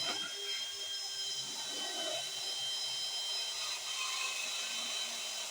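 Handheld drill spinning a burr cutter, running at a steady whine as it grinds stray weld out of the inner bore so the ram's sleeve can pass through.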